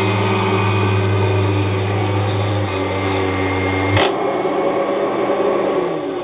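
Kirby G3 upright vacuum cleaner running over carpet. About four seconds in it is switched off with a sharp click, and its motor winds down near the end.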